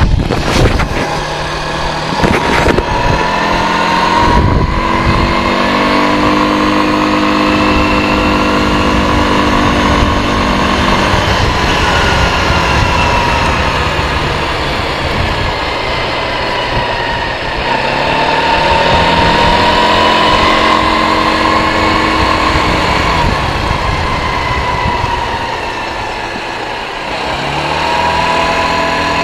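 K-Lion Santa 200 quad bike's engine running under way at road speed, its pitch rising and falling several times as the throttle is opened and eased off. A few brief thumps come in the first few seconds.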